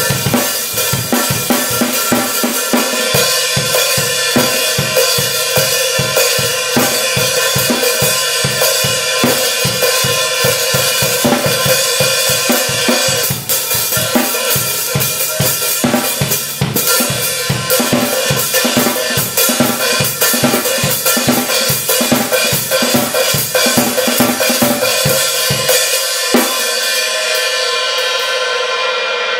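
Drum kit played in a steady groove on Zildjian 14-inch A Custom Mastersound hi-hats, with kick and snare drum under the hi-hat strokes. About 26 seconds in, the drums stop and the cymbals are left ringing.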